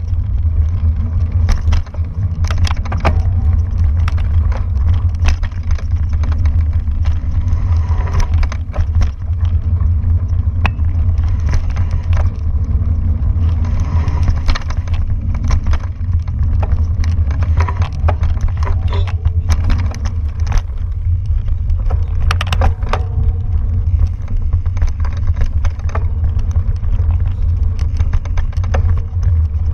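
Mountain bike riding fast over a forest dirt trail, heard from a camera mounted on the bike or rider: a loud, steady low rumble of wind and vibration on the microphone, with frequent rattles and clicks as the bike goes over roots and bumps.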